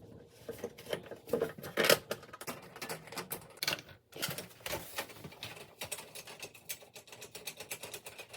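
Rapid, irregular clicking and tapping of hand-tool work on a dishwasher door as a handle is fitted, with one louder knock about two seconds in.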